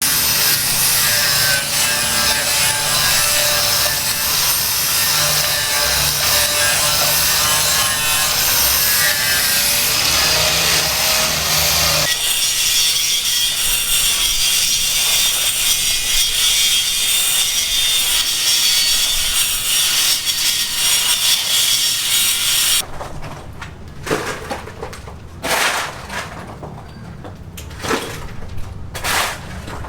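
Sawing, loud and continuous, changing in character about twelve seconds in. It gives way about twenty-three seconds in to quieter, separate scraping strokes and knocks.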